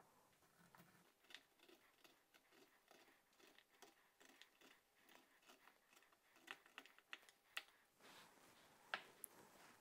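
Faint, crisp snaps and clicks of a paring knife cutting the tough outer leaves and stem off a small fresh artichoke on a wooden board, louder in the second half with the sharpest click about nine seconds in.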